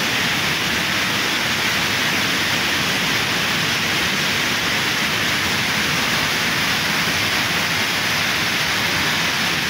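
Waterfall rushing down a rock face and spilling over a stone wall: a steady, unbroken noise of falling water.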